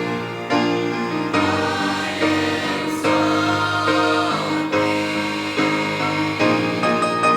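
A college gospel choir singing a worship song in harmony, holding chords that change every second or so.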